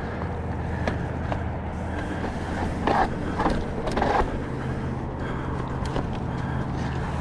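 Mountain bike rolling over sandstone rock: a steady low rumble of tyres and bike with scattered small rattles and clicks, and a couple of louder scuffs about three and four seconds in.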